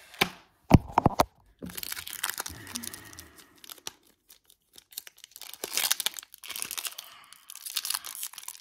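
Foil wrapper of a sealed Pokémon trading-card booster pack being torn open and crinkled, with a crackly, rustling tear. A few sharp knocks come in the first second or so.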